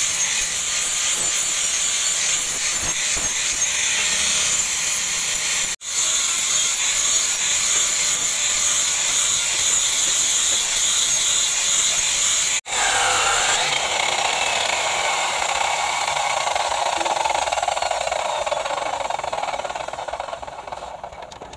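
Angle grinder with a flap disc grinding the flat of a leaf-spring steel cleaver blade: a steady, high-pitched whir, cut off briefly twice. About two-thirds of the way through, a different steady machine sound with a lower tone takes over and fades toward the end.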